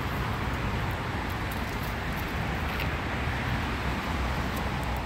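Steady road traffic noise from a busy city street: an even rumble and hiss of passing vehicles with no break.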